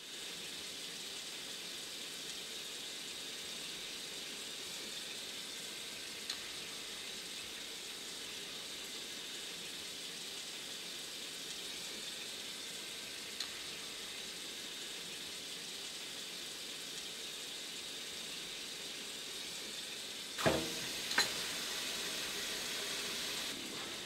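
Kitchen tap running into a sink while dishes are washed: a steady water hiss, with two short knocks of dishes about 20 seconds in.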